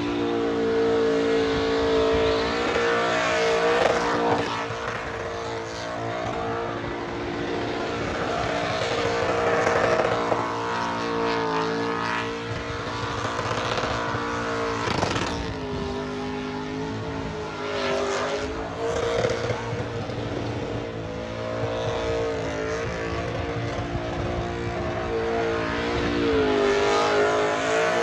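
Burnout car's engine held at high revs with the rear tyres spinning on the strip; the revs dip and climb back several times.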